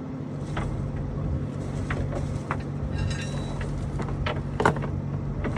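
An engine running steadily with a low hum, with a few sharp clicks and knocks scattered over it.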